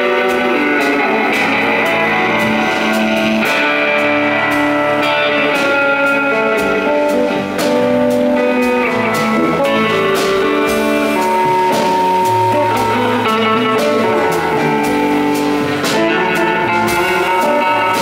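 Rock band playing live, an instrumental stretch: electric guitar notes over bass guitar and a drum kit with steady cymbal and drum hits.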